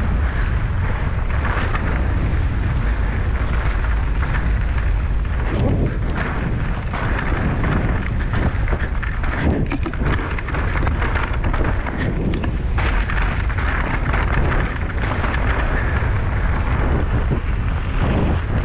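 Wind buffeting the microphone of a rider-mounted action camera as a mountain bike rolls along a dirt trail, with steady tyre noise on dirt and gravel. Scattered short knocks and rattles from the bike run through it.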